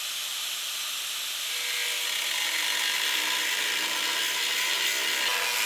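Angle grinder with a thin cut-off disc cutting through a rusty steel mounting tab welded to a chassis crossmember. It gives a steady, high grinding rush, with a faint whine coming in about a second and a half in as the disc bites.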